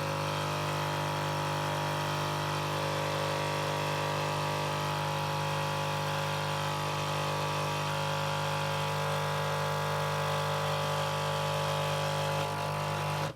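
Krups Nescafé Dolce Gusto pod coffee machine's pump buzzing steadily as it pushes hot water through the pod and coffee pours into the cup. It cuts off suddenly at the end when brewing stops.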